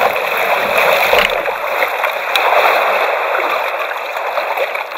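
Water splashing and rushing steadily against a sea kayak.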